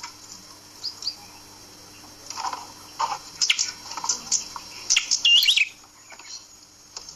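A small songbird sold as 'prenjak kepala merah' gives sharp chirps and scolding calls in clusters. A looping whistled note comes about five seconds in.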